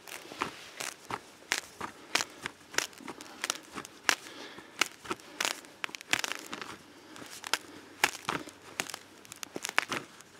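Ice anchor, a large eye screw, being twisted by hand into lake ice: an irregular run of sharp crunching, scraping clicks, a few each second.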